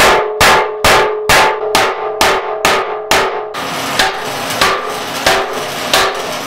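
Hammer blows on a steel drift pin, driving a seized pin out of a steel crane housing. There are about two ringing, metallic strikes a second at first, then softer blows spaced further apart from about halfway through.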